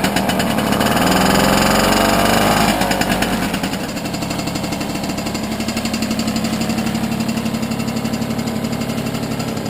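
Piaggio Ciao moped's small two-stroke single-cylinder engine, just started and revving, then settling to a steady fast-pulsing idle about three to four seconds in.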